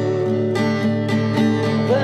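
Slow worship music: an acoustic guitar strummed in a steady rhythm over sustained held chords.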